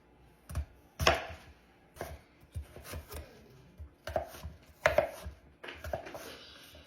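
A knife chopping through an apple to cut it into slices: a series of separate, irregularly spaced cuts, about one every half second to second.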